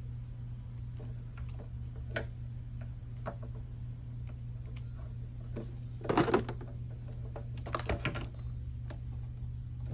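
Wire stripper clicking and snapping on small electrical wires, with scattered light clicks and two louder clusters about six and eight seconds in, over a steady low hum.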